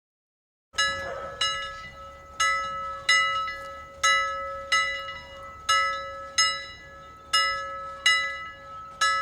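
Timer alarm bell ringing, starting under a second in after silence: clear repeated strikes in pairs, about two pairs every three seconds, each ringing on over a steady held note. It signals that the seven-minute countdown is up.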